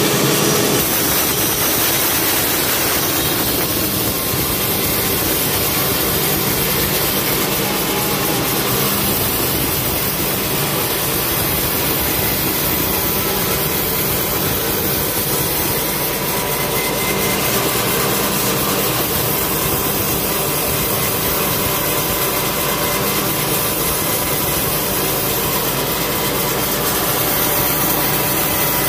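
Band sawmill running steadily, its blade ripping lengthwise through a log of cempedak heartwood as the log carriage moves past.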